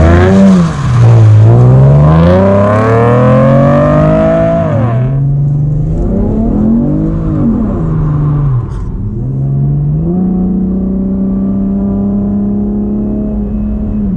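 Chevrolet Camaro 3.6-litre V6 with an aftermarket Borla exhaust, accelerating: the engine note climbs for about four seconds, drops sharply, rises and falls once more, then settles into a steady drone.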